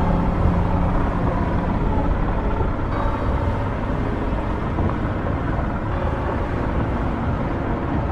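Axial SCX10 III radio-controlled crawler driving off-road, its electric motor and drivetrain running over a steady rough rumble.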